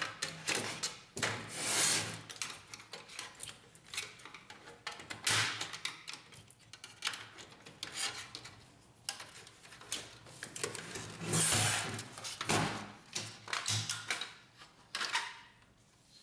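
Hands working the plastic rear cover off a laser printer: irregular clicks and knocks of the plastic housing, with several short scraping rubs as the cover is pried and slid free.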